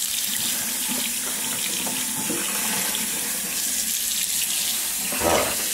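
Kitchen faucet running steadily into a stainless-steel sink, the stream splashing over hands and wet fur as a soapy monkey is rinsed.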